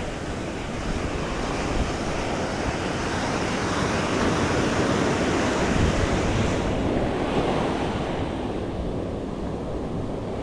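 Ocean surf breaking and washing up the beach, swelling to a peak midway and easing off toward the end, with wind buffeting the microphone.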